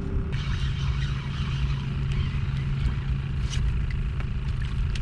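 Steady low hum of a boat motor running, over a low rumble, with scattered small clicks.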